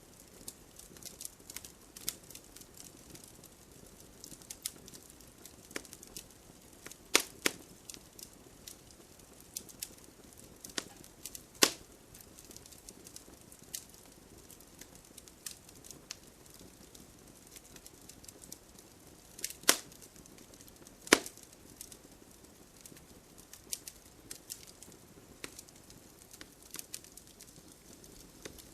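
Wood fire burning in a fireplace: a soft steady hiss with frequent small crackles and a few louder sharp pops.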